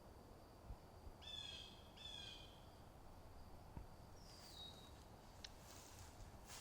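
Faint outdoor ambience with birds calling: two harsh calls in quick succession a little over a second in, then a short falling whistle about four seconds in, over a thin steady high note.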